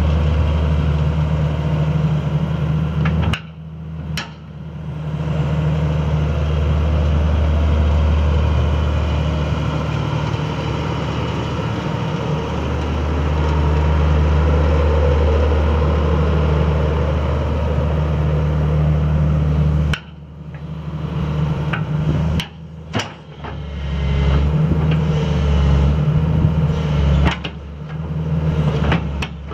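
Diesel engine of a 2000 Cat 315 BL hydraulic excavator idling steadily, a deep even hum. It is broken by a few sudden drops in level and some sharp clicks, about three seconds in, around two-thirds of the way through and near the end.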